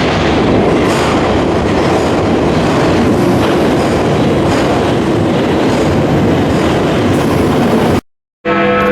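A train running along the track: a steady rumble with wheel clatter over the rails. It cuts off suddenly near the end.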